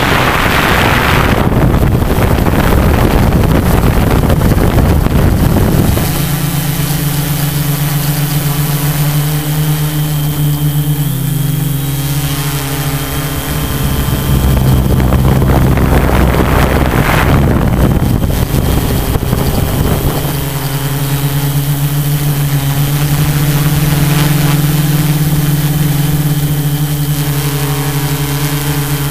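Tarot 680 Pro hexacopter's electric motors and propellers humming steadily, heard from a camera on board the drone. A rushing wind noise covers the hum for the first few seconds and again about two-thirds of the way through.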